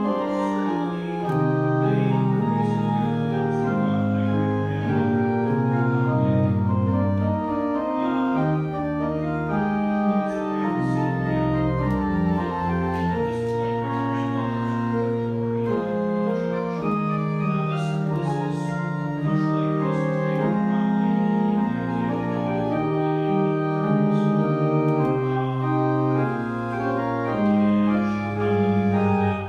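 Pipe organ playing a classical piece: held chords that change from note to note, with low bass notes sustained beneath them.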